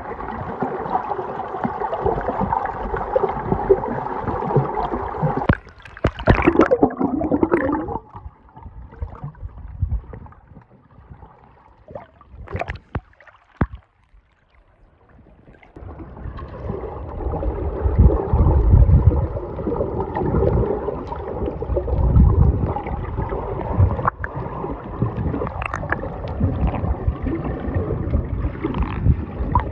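Water sloshing and gurgling close to the microphone, with irregular low buffeting thumps. There is a louder splashy burst several seconds in, then a quieter stretch in the middle.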